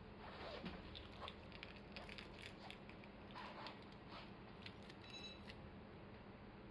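Near silence: faint scattered clicks and rustles, with a brief faint high beep about five seconds in.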